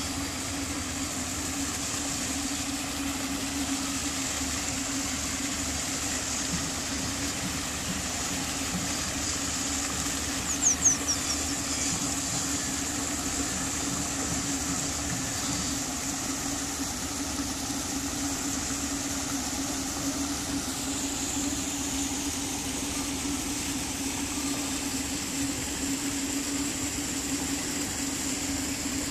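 A steady mechanical hum over a constant hiss, with a few quick high chirps about ten and a half seconds in.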